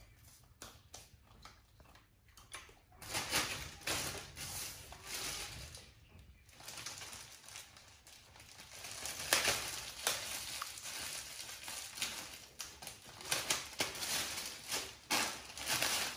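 Clear plastic bag being crinkled and rustled in the hands, in repeated bouts of crackly rustling with small clicks and taps between them.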